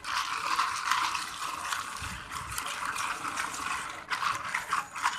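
Ice cubes clinking and rattling against a paper cup as iced black coffee is stirred, a dense run of small clicks with the coffee swishing, pausing briefly about four seconds in.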